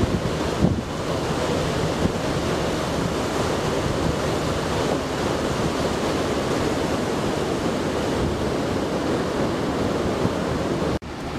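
Ocean surf breaking on a sandy beach: a steady, continuous rush of waves.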